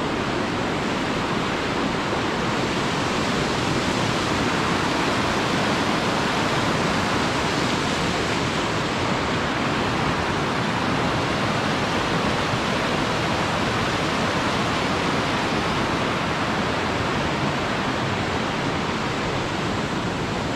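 Steady rushing of water, an even unbroken hiss with no single event standing out.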